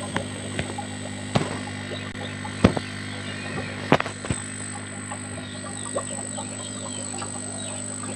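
Steady low hum with about seven sharp taps or clicks, the loudest about two and a half and four seconds in, over faint bird chirps.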